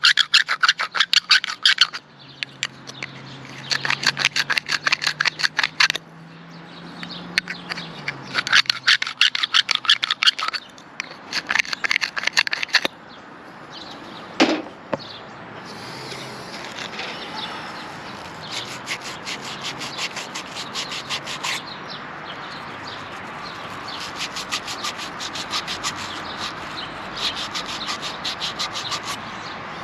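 Rapid back-and-forth scraping strokes in bursts, abrasive cleaning of copper pipe and fittings ahead of soldering. After a sharp click about halfway, a steady hiss sets in, with more scraping strokes over it.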